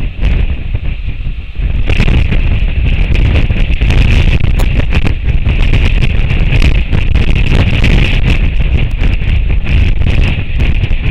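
Strong wind buffeting the microphone: a loud, gusty rumble that grows stronger about two seconds in and stays heavy.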